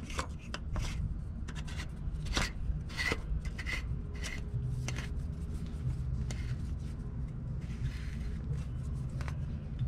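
Plastic oil filter housing cap on a 3rd-gen Toyota Tacoma being screwed back into its housing by hand, with irregular small clicks and scraping rubs as the threads turn.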